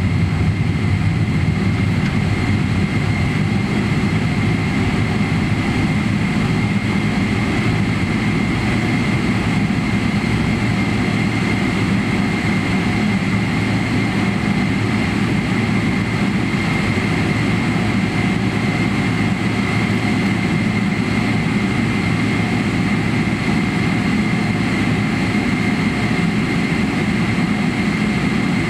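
Boeing 777-300ER's GE90-115B turbofan engines running steadily at taxi power, heard from inside the cabin: a low rumble with a steady high whine over it.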